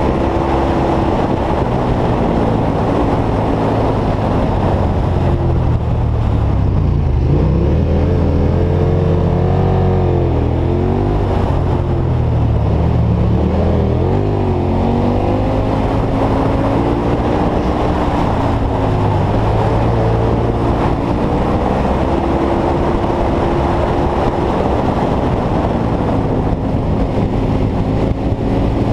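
KTM V-twin motorcycle engine running under way, its revs rising and falling through the bends, over steady wind and road noise.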